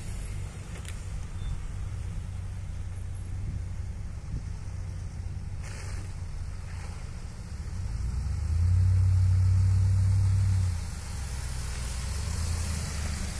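Jeep Grand Cherokee SUVs driving slowly along a dirt track. A low engine drone swells for about three seconds as the lead one comes close, over a steady low rumble.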